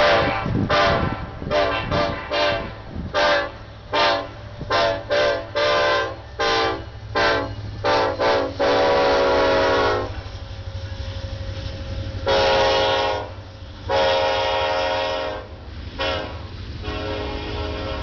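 Ferromex diesel locomotive's horn sounded in a rapid string of short toots, then several long blasts, over the low rumble of the locomotive and its tank car train rolling past.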